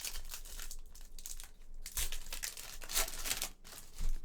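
Crinkling and rustling of trading-card packaging being handled, a run of short scraping rustles that grows louder about two and three seconds in.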